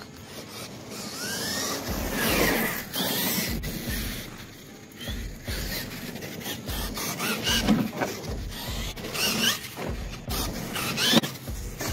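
Losi LMT RC monster truck's 4S brushless motor whining as the truck is throttled on and off, the pitch rising and falling over and over.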